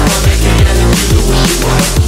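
Background electronic music in a drum and bass style, with heavy bass and a steady, fast beat.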